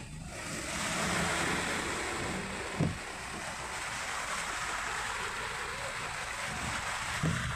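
Steady rushing hiss of water churned and sprayed by vehicle tyres ploughing through flood water, heard from inside a car. Two short low thumps come about three seconds in and near the end.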